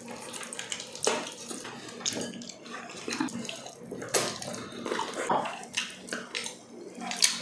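Wet eating sounds: chewing, lip-smacking and sucking on stewed pork trotter, with irregular short smacks and clicks.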